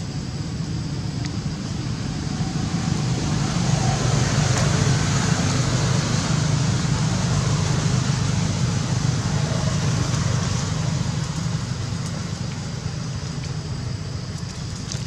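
Low rumble of a passing motor vehicle, swelling over a few seconds and then slowly fading.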